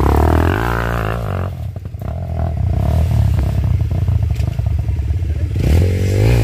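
Dirt bike engine revving under load on a rough trail, its pitch rising sharply in the first second and again near the end, with a lower-revving stretch between.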